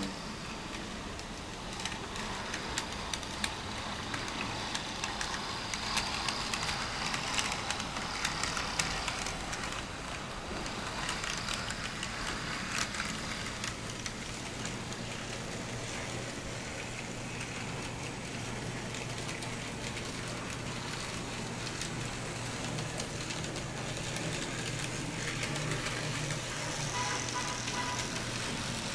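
N scale model trams and trains running on the layout's track. Through the first half, light irregular clicking of small wheels over rail joints and turnouts; from about halfway, a steady low hum of the small electric motors.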